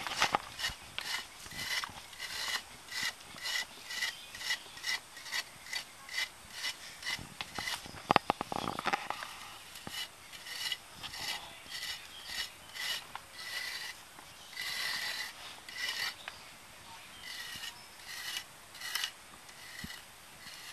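A hand excavation tool scraping and rasping at packed midden soil in short, even strokes, about two a second. A few sharp clicks come near the start and about eight seconds in, and the strokes thin out near the end.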